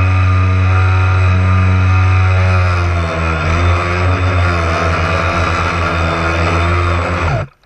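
Radio-controlled boat's motor running, heard from on board with water noise. It holds steady at first, wavers and shifts in pitch as the boat slows from about three seconds in, then cuts off suddenly near the end as the motor stops.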